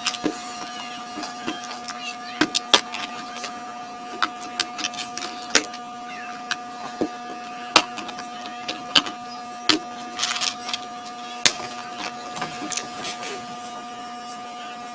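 Irregular light clicks and taps of laptop parts being handled during disassembly, over a steady electrical hum.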